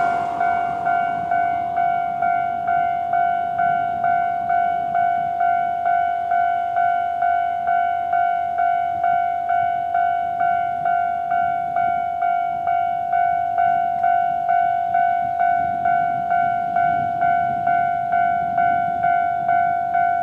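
Japanese railway level-crossing alarm ringing its normal electronic bell tone, one ringing note repeated at about two strikes a second.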